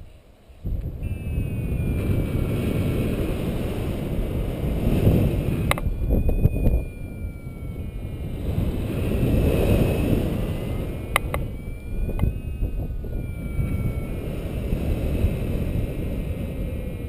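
Wind buffeting the microphone of a paraglider pilot's camera in flight, a rumbling rush that swells and eases. Faint high whistling tones slide up and down over it, and there are a couple of sharp clicks.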